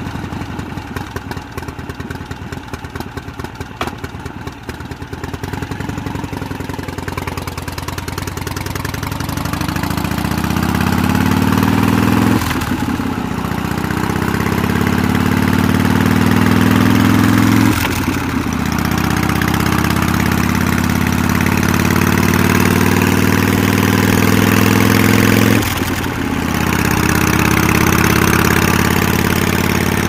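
Motorcycle engine idling with an uneven, pulsing beat, then pulling away and accelerating. Its pitch climbs and drops sharply three times as it shifts up through the gears.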